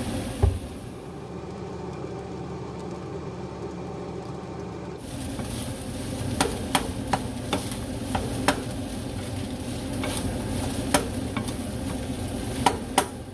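Kitchen cooking sounds: utensils clicking and knocking against cookware over a steady hiss, with a single thump about half a second in.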